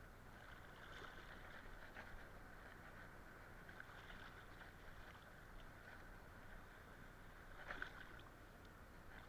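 Near silence: faint water sloshing with a few small knocks and rustles, a little louder briefly near the end.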